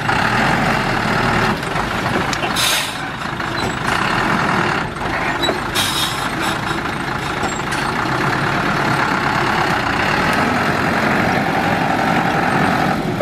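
Small dump truck's diesel engine running steadily under load with its bed tipped up while the soil load slides out the back, with two short hisses of air about three and six seconds in.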